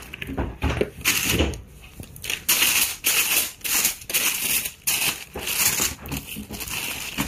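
Tissue paper and a thin plastic bag crinkling and rustling as a shoebox is unpacked by hand, in a quick irregular series of bursts. A few low knocks from the cardboard box come near the start.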